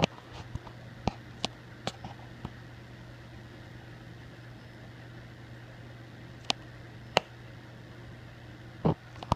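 A steady low hum, like a running appliance or fan, with a few sharp clicks scattered through and a duller bump near the end.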